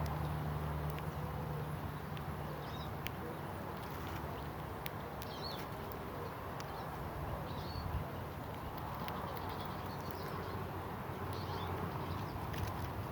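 Wild birds in a garden giving short calls every few seconds, with scattered sharp clicks, over a steady low background rumble.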